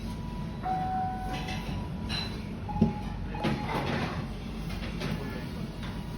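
Ramen shop background: a steady low hum with a few short electronic beeps, a sharp knock about three seconds in and some clatter after it.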